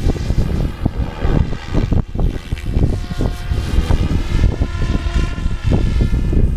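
Electric SAB Goblin 570 RC helicopter flying overhead, its rotor and motor whine rising and falling in pitch. Heavy wind buffeting on the microphone is louder than the helicopter.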